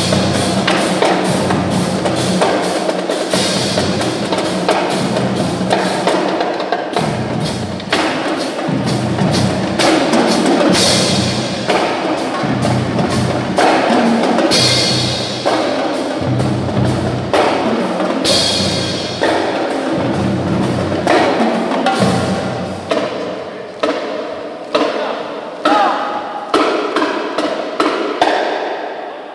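School marching percussion band playing a drum cadence on snare drums, bass drums and crash cymbals. In the last several seconds the playing thins out to separate, evenly spaced hits.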